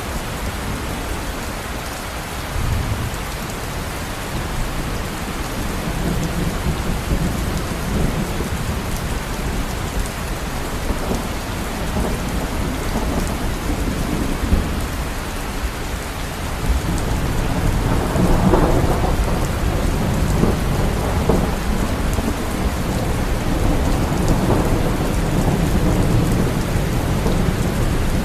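Steady heavy rain with thunder rumbling low underneath. The rain grows louder a little past the middle, with deeper rumbles swelling twice after that.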